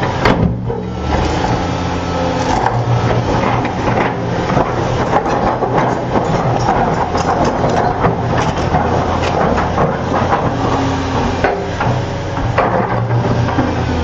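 Hitachi hydraulic excavator's diesel engine running steadily under load while its bucket shoves a large boulder, with frequent knocks, scraping and crunching of rock on gravel and steel.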